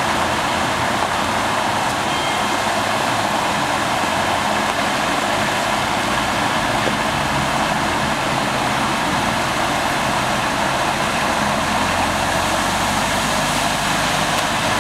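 Floodwater surging up out of a flooded manhole and pouring across the road in a steady rush, with car engines running low underneath. A car drives through the flood near the end.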